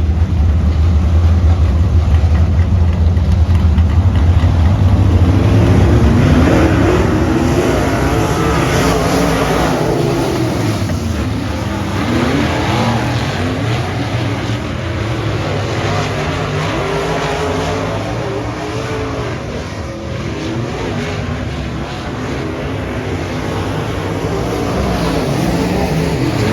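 Several dirt-track race car engines running together, a heavy low rumble at first, then many engines rising and falling in pitch as they rev up and back off around the oval.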